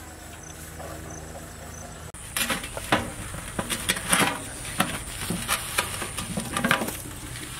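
A low, steady engine-like hum, then from about two seconds in a run of irregular sharp crackles and clicks as a metal cover is lifted off food cooking over a wood fire, with metal scraping.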